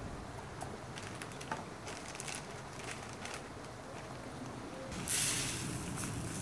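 Light rustling and small ticks as a plastic bag of rice is handled and opened, then about five seconds in a loud hiss of dry rice grains pouring into a plastic tub.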